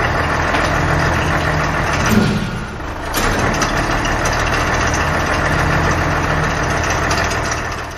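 Rear-loading garbage truck running steadily at idle while its bin lifter works, with a brief dip in level a little over two seconds in.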